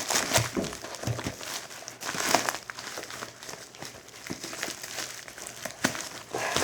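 Plastic packaging crinkling and rustling as it is worked open by hand, in irregular crackles with a few louder snaps.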